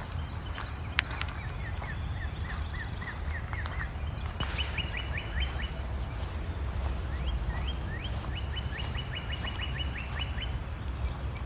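A songbird singing runs of quick repeated high notes: one run of about ten notes early on, a short run just past the middle, and a longer, faster run of about fifteen notes later, over a steady low rumble, with a sharp click about a second in.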